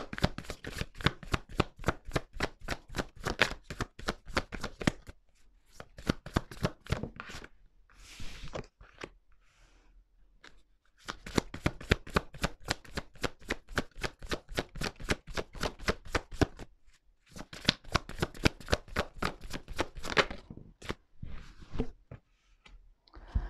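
A tarot deck being shuffled by hand: rapid runs of card slaps and riffling, about five a second, in several stretches broken by short pauses.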